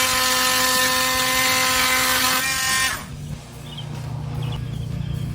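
Oscillating multi-tool with a carbide blade, set to reduced speed, cutting through a fiber cement backer board screw: a steady, buzzing whine. It stops about three seconds in, and quieter background music follows.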